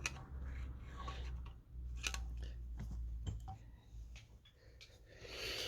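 Scattered light metallic clicks and taps of hand tools and bolts being worked on a chainsaw crankcase, over a steady low hum, with a short rustle near the end.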